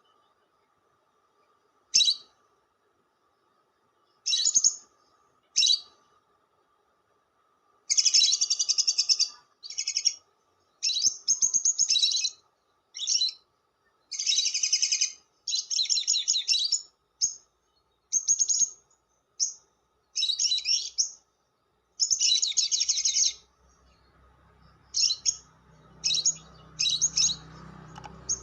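Lovebird chattering in shrill, harsh bursts: a few short single calls at first, then from about eight seconds a long run of rapid chattering bursts. Near the end a low hum comes in beneath the calls.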